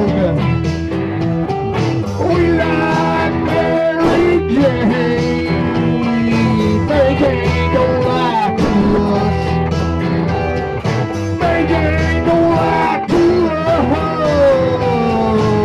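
Blues-rock band music led by guitar, playing notes that slide and bend in pitch over a steady low accompaniment.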